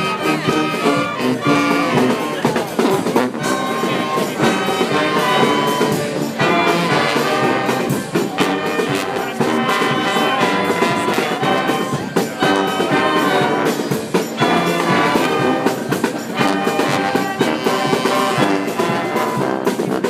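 Live street brass band playing: trombones, trumpets and sousaphone with flute, clarinet, saxophone, melodica and accordion. The playing is continuous and loud.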